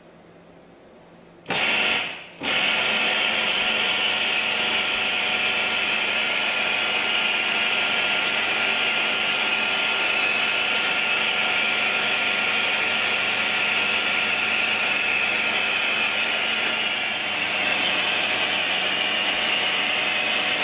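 Very-high-pressure water jet from a robotic pressure washer spraying a wall, a loud steady hiss. It starts about a second and a half in, cuts out briefly, then runs on evenly.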